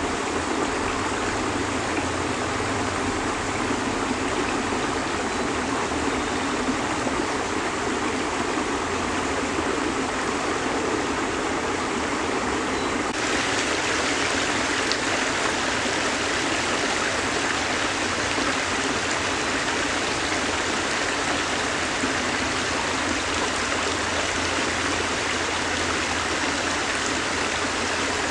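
Creek water running over and between rocks: a steady rushing and trickling. About halfway through it turns brighter and hissier.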